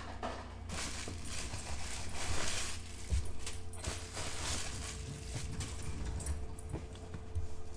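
Packaging being handled while unboxing: rustling in several sweeps with a few light knocks, over a steady low electrical hum.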